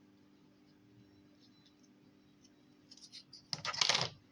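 A few light clicks, then about three and a half seconds in a short, loud burst of hard plastic clattering and scraping: the Play-Doh set's plastic molds and tools being handled.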